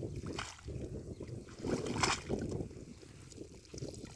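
Wet cast net being hauled up out of shallow canal water: water splashing and running off the net in a few short bursts, the loudest about two seconds in, over a low rumble of wind on the microphone.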